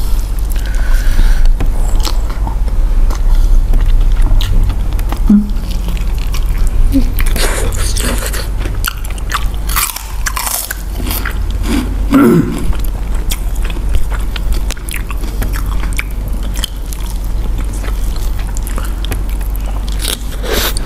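Close-miked eating: chewing and biting with many short crunches and mouth smacks as roast duck and crisp sides are eaten by hand, over a steady low hum.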